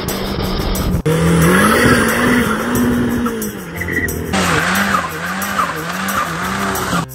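Car sounds in short cut-together segments, with an engine note that rises and falls in slow waves.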